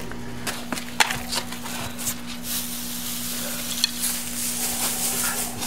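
Dry pine needles rustling and crackling as handfuls are grabbed and dropped into a stone-lined fire pit, with a few sharp crackles in the first two seconds and a denser rustle from about halfway on.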